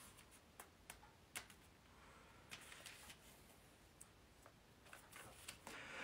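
Near silence: room tone with faint, scattered small clicks and soft rustles, about half a dozen, from something being handled while a verse is looked up.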